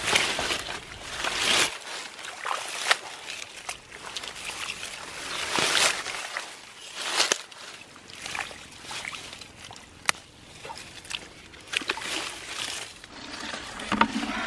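Hands sloshing and splashing in a shallow, muddy water hole, groping through the mud for fish: irregular wet splashes and squelches, with a few sharp clicks.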